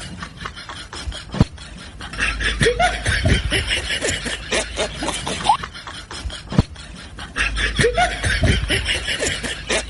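A person snickering and chuckling in short bursts, in two stretches about five seconds apart.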